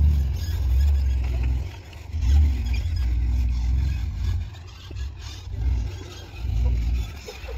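Jeep driving off-road: a low engine rumble that swells and fades several times.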